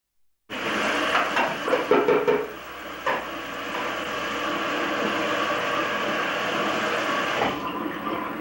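Knocks and clatter of kitchenware handled at a counter, a cluster of them in the first few seconds, over the steady hiss of a tape soundtrack played back from a VHS recorder.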